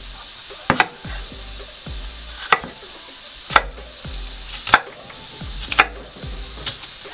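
Kitchen knife dicing a bell pepper on a wooden cutting board: sharp knocks of the blade on the board about once a second, two in quick succession near the start. A steady sizzle of onion frying in oil runs underneath.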